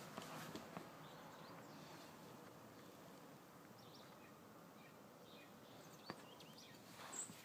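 Near silence: faint outdoor background with a few brief, faint bird chirps and a couple of small clicks, one about six seconds in and another near the end.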